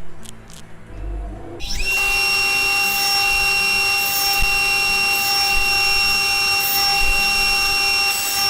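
Table saw switched on about one and a half seconds in, spinning up quickly and running with a steady high whine while a melamine test board is cut on the crosscut sled.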